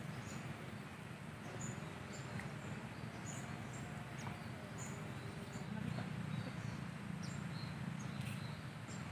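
Open-air riverside ambience: a steady low rumble with short high-pitched chirps repeating about every two-thirds of a second.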